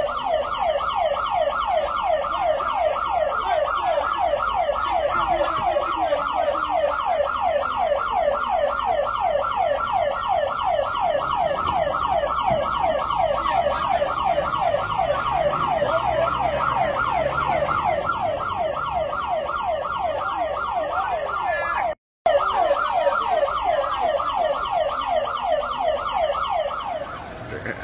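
Electronic siren in a fast yelp pattern, sweeping up and down over and over at an even pace. It breaks off for a moment about three-quarters of the way through.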